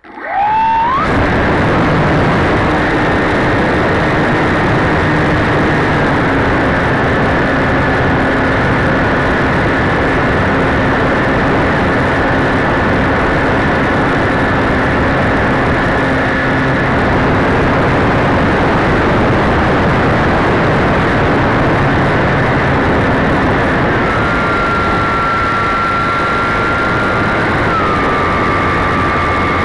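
A radio-controlled model airplane's motor and propeller, heard from a camera on board. It comes up to full power with a rising whine at the start and then runs steadily under a loud rush of air, its pitch shifting slightly a few times.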